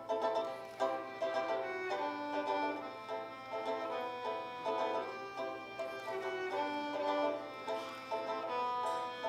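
Fiddle and five-string banjo playing a tune together, the fiddle's held bowed melody notes over the banjo's quick plucked notes.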